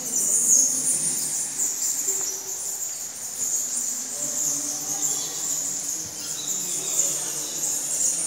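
Insects chirring in a steady, high-pitched chorus, with faint low sounds underneath.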